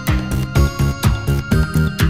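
Background electronic music with a steady, quick beat.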